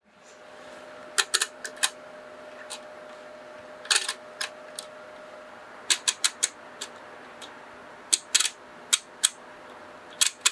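Setting levers of a hand-cranked pinwheel mechanical calculator being slid into place one at a time, giving short clusters of sharp clicks, several groups a second or two apart.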